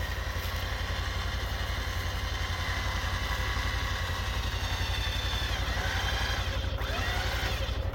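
UTV engine idling with a steady, fast low pulse.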